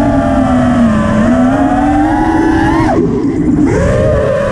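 FPV quadcopter's brushless motors and propellers whining, the pitch rising and falling with the throttle. About three seconds in the pitch climbs, then the throttle is chopped and the whine drops away for a moment before the motors spool back up. Wind rumbles on the drone-mounted camera underneath.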